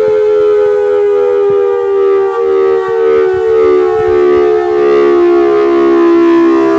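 Whelen WPS-4004 electronic outdoor warning siren sounding in dual-tone mode: two close tones heard together, sliding slowly and steadily down in pitch, with the loudness swelling and dipping a little.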